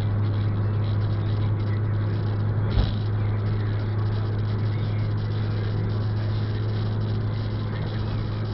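Steady road and engine noise of a car driving on a wet highway, heard from inside the cabin, with a constant low drone and tyre hiss. There is a single short knock about three seconds in.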